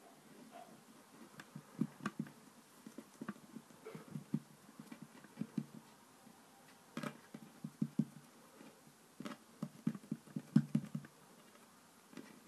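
Fingers patting and pressing soft play dough into a triangle on a wooden tabletop: irregular soft taps and light knocks in short clusters with brief pauses between them.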